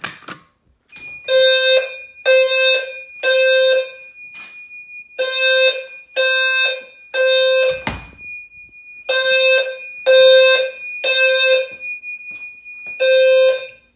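Fire alarm low-frequency sounder sounding the temporal-3 evacuation pattern: three beeps, a pause, then three more, repeating, after a click as the pull station is pulled. A steady high tone runs under the beeps, and there is a single thump about eight seconds in.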